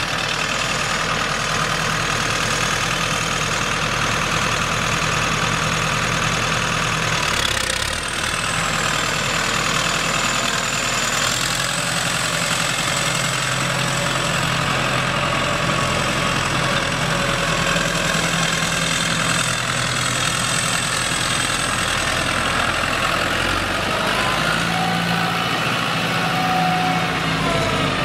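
A 2000 New Holland TS100 tractor's four-cylinder turbo diesel engine idling steadily, with a thin high whine above the engine note.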